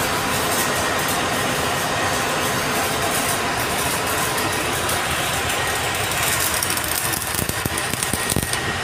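Stick welding on a large steel pipe: the arc crackles and sputters steadily over a constant machinery drone. The crackle grows more uneven near the end.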